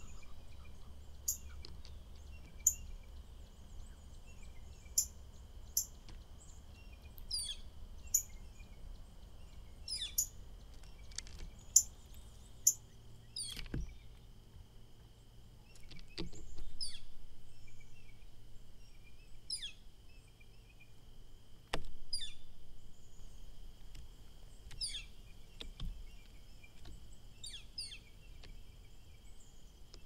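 Small songbirds calling: short, sharp chirps that drop quickly in pitch, a few every couple of seconds, over a faint steady high-pitched tone.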